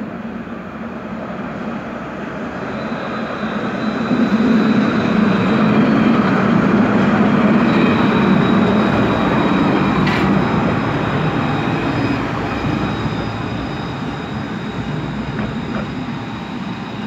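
Alstom Citadis tram passing close by. Its running noise swells to a peak around the middle and then slowly fades as it moves away, with a faint steady high whine throughout and a single sharp click about ten seconds in.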